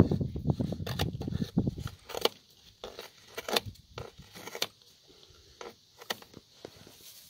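Rustling handling noise for about two seconds, then scattered scrapes and small clicks, as tape and padding are pulled and worked off a calf's leg splint.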